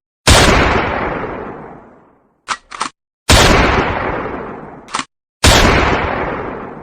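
Gunshot sound effect repeating: three loud shots, each with a long echoing fade of about two seconds. A pair of short clicks comes before the second shot and a single click before the third.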